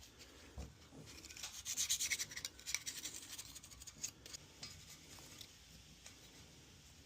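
Hand cleaning of the LSA supercharger snout's mating surface: quick rubbing strokes over the metal, densest and loudest about two seconds in, then slower and fainter.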